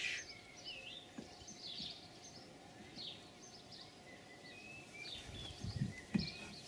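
Faint birdsong: short chirps and warbling notes, with a few soft knocks near the end.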